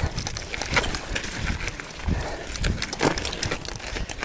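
Mountain bike climbing over rock: irregular knocks, clicks and rattles from the tyres and bike jolting on the stones, over a low rumble of the ride.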